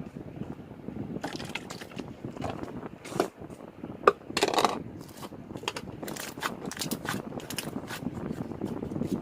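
Sherbet jelly slime being squished and worked by hand, giving a run of irregular crackling pops and clicks.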